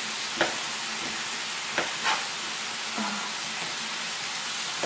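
Diced bacon sizzling steadily in a frying pan, with a few sharp knife strokes onto a plastic cutting board as small sausages are sliced.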